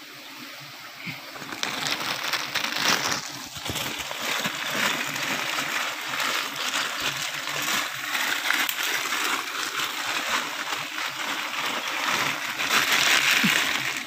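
A thin plastic bag crinkling and rustling as it is handled, a dense crackle that sets in about two seconds in and is loudest near the end.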